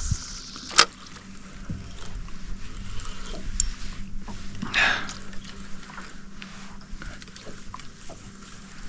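Small rowboat on calm water: water lapping and splashing at the hull, with a sharp knock about a second in and a brief louder splash about five seconds in.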